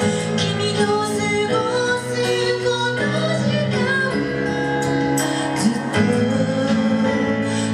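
Pop song played live, with sustained chords and a steady beat, and a woman's singing voice at times.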